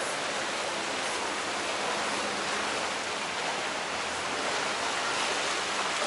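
Steady rush of water churned along the hull and wake of a moving wooden tour boat.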